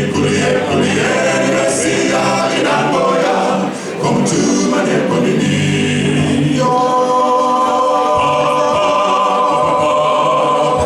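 Male a cappella gospel group singing in close harmony, with no instruments, settling about seven seconds in onto a long held chord that lasts to near the end.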